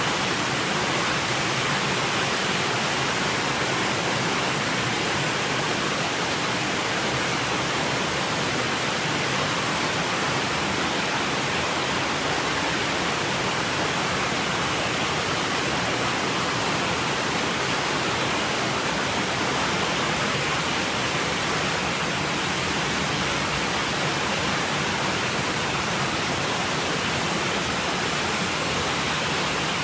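Heavy downpour and fast-running floodwater making a steady, unbroken rush of water noise.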